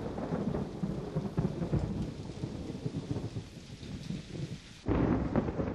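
Thunderstorm: rain with rumbling thunder that slowly dies away, then a sudden fresh, louder rumble of thunder about five seconds in.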